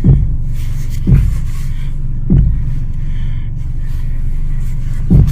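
Fiat 500 engine idling with a steady low rumble while the steering is turned, and the front suspension bangs loudly: three bangs about a second apart, then a fourth near the end. The bangs come from a front strut top mount whose bearings the owner suspects are gone; it grabs and twitches instead of turning smoothly.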